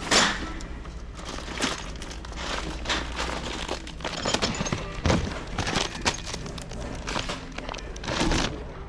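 Irregular rustling, clicks and knocks of hardware and packaging being handled, over a steady low hum of store background.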